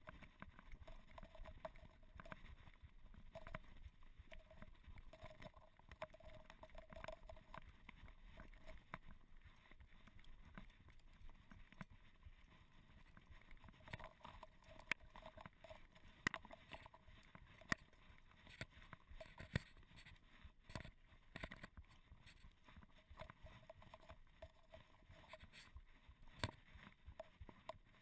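Faint, irregular knocking and rattling of a mountain bike rolling over a rough gravel track, with sharp clicks as the bars and frame take bumps.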